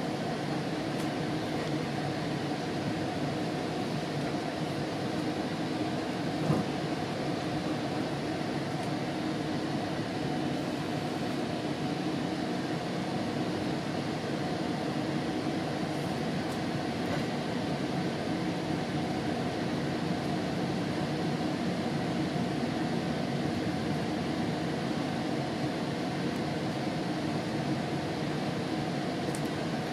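Steady running noise inside a moving GO Transit bilevel commuter coach: a constant rumble and hum from the wheels on the rails and the car itself, with one brief knock about six seconds in.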